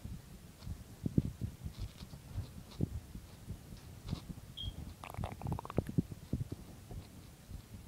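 Irregular muffled low thumps and rustling, with a short high squeak about four and a half seconds in and a brief creak about five seconds in.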